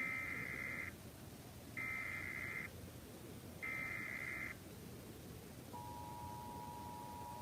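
Emergency Alert System SAME header: three identical bursts of warbling two-pitch data tones, each about a second long. About two seconds after the last burst, the EAS attention signal starts, two steady tones at 853 and 960 Hz sounding together.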